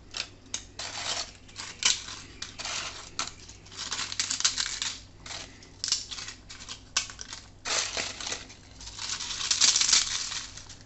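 Crisp fried appalams (papads) being crushed and broken apart by hand: a run of dry, irregular crackles and crunches, loudest near the end.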